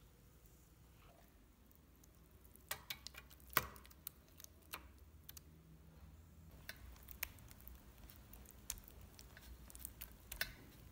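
Scattered sharp clicks and taps of a utensil against a glass jug and a metal pan as a raw pork-and-egg meatloaf mixture is scraped into a steamer pan and smoothed flat. They begin about two and a half seconds in, with one louder knock near the middle.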